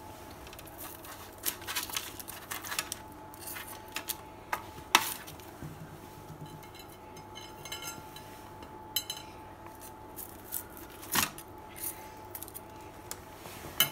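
Metal knife tapping and scraping against a plate as grilled beef suya strips are cut and pushed around on the paper lining, with scattered sharp clicks; the loudest come about five seconds in and again at about eleven.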